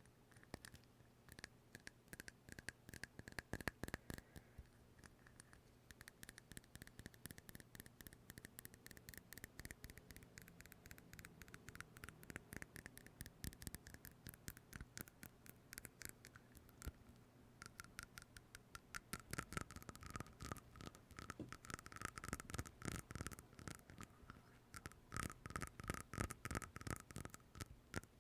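Rapid small taps and scratches on an object, a dense run of quick clicks with a faint ring, sparser at first and growing thicker and louder over the last ten seconds.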